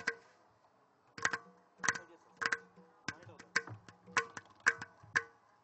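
Tabla strokes, each with a short pitched ring, starting about a second in and keeping a steady beat of about two strokes a second.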